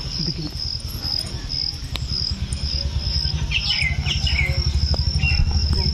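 Insects chirping in a steady pulsing rhythm of about two to three pulses a second, with a few bird chirps around the middle. A low rumble underneath grows louder in the second half.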